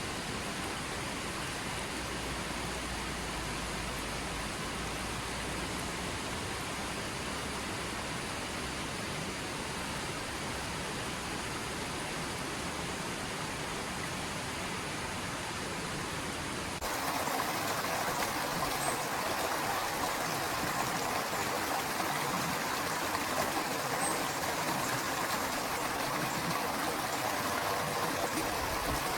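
Steady rush of flowing water from a waterfall and river. About 17 seconds in it switches abruptly to a louder, brighter rush.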